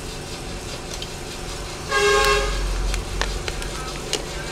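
A short, buzzy horn toot lasting about half a second, about halfway through, over a steady low hum with a brief low rumble. A few light clicks follow as the phone is handled.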